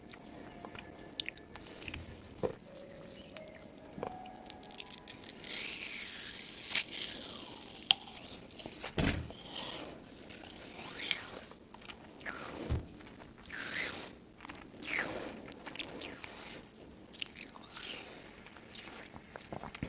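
A person biting and chewing crunchy food close to the microphone, in irregular crunches that come thicker from about five seconds in.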